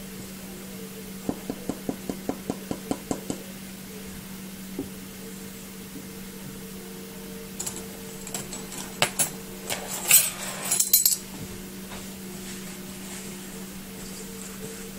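Kitchen utensils knocking and clinking against a stainless steel mixing bowl. A quick run of about ten light taps comes a little over a second in; past the middle come louder, sharper metallic clinks and scrapes.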